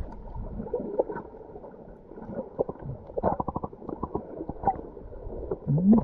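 Seawater gurgling and sloshing, heard muffled with the camera lowered into the water at the feet, with many small clicks and knocks.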